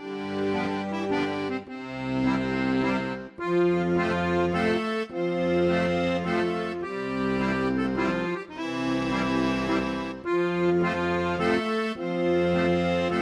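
Background music led by an accordion, playing sustained chords that change every second or two over a steady bass.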